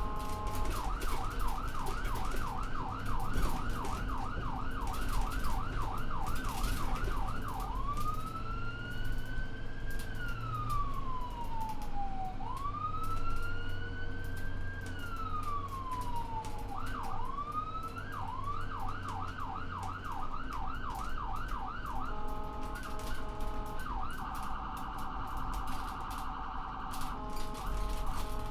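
Ambulance electronic siren switching through its modes. It starts with a fast yelp of about four sweeps a second, then gives two slow wails, each rising then falling over about four seconds. The yelp returns, then come short steady multi-tone horn blasts and a very rapid warble, over a low engine hum.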